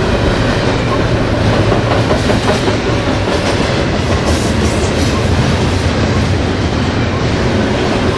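Double-stack intermodal freight train's well cars rolling past at close range: a loud, steady noise of steel wheels running on the rails.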